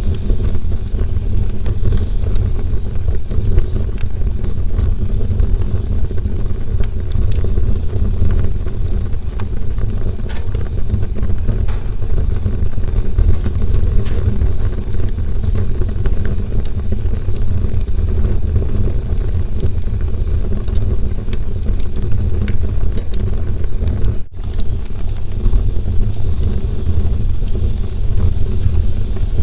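Campfire burning, a steady low rumble of the flames with scattered small crackles and pops throughout. A momentary dropout about 24 seconds in.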